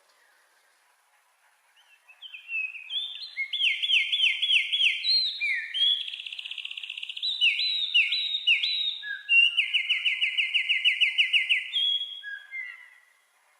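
A wren singing: a long song of rapid trills and quick downslurred notes, beginning about two seconds in and running for about ten seconds.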